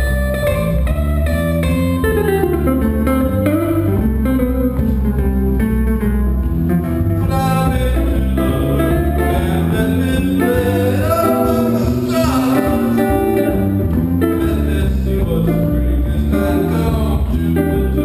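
Guitar and electric bass duo playing a jazz standard, the guitar carrying the melody and chords over a walking bass line.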